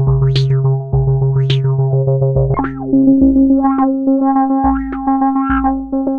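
Eurorack modular synthesizer patch playing a sequenced electronic pattern through a stereo filter: held bass and chord tones, the bass note changing about halfway through. The filter opens and closes in bright sweeps about once a second in the first few seconds, then in smaller ones.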